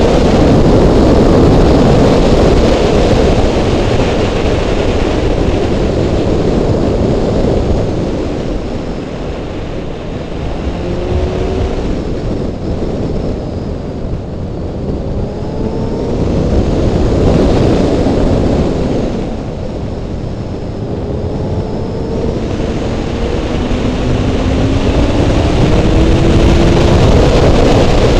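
Heavy wind rush over a helmet-mounted camera on a Honda CBR600 motorcycle at road speed. Underneath, the inline-four engine rises in pitch several times as it pulls through the gears. The wind eases twice for a few seconds.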